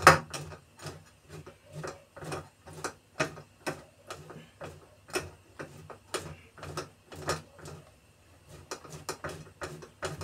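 Block of mozzarella rubbed down a handheld stainless-steel grater, a rasping stroke about twice a second, with a short pause near the end before the strokes resume.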